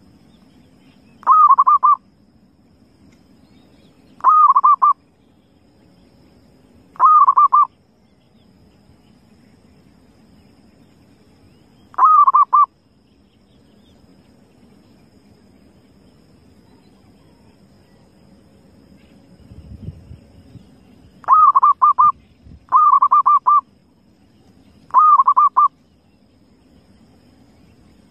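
Zebra dove (perkutut) cooing: seven short calls, each a quick run of pulsed coo notes about half a second long, spaced a few seconds apart, with three close together near the end.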